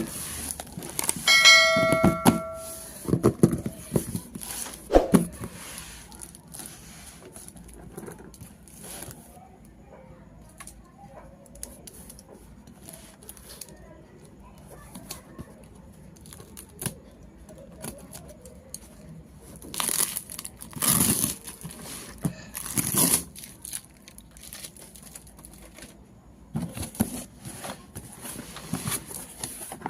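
Unboxing handling noise: packaging crinkling and tearing, with small clicks from handled toy pieces. A short bell-like ring sounds about a second and a half in. Louder tearing bursts come twice, around twenty and twenty-three seconds in.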